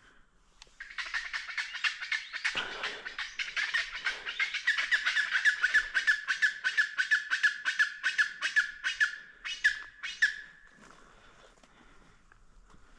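Chachalacas calling in a loud chorus of harsh, rapidly repeated notes, about four a second, which stops suddenly about ten and a half seconds in.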